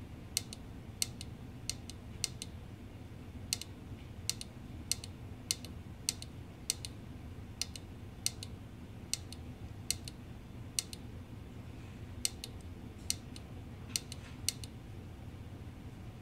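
Small tactile push button on a digital-clock circuit board clicking as it is pressed repeatedly to step the minutes forward, about one to two sharp clicks a second, often in close press-and-release pairs, over a steady low hum.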